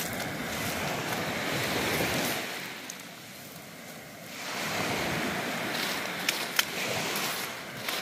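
Sea waves washing onto the beach: a rushing surf that swells, dies down for a second or so in the middle, then swells again. Two sharp clicks come about six and a half seconds in.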